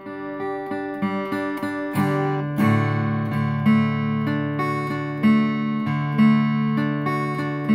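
All-mahogany Tanglewood Crossroads orchestra-body acoustic guitar with bronze strings, played straight out of the box: single picked notes at first, then from about two and a half seconds in, strummed chords struck about once a second and left ringing.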